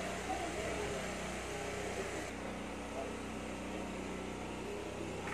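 A steady motor hum under outdoor background noise. About two seconds in, the high hiss drops away and a lower steady tone comes up.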